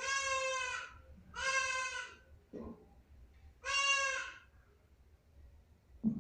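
Goats bleating: three separate calls of under a second each, the third after a longer pause.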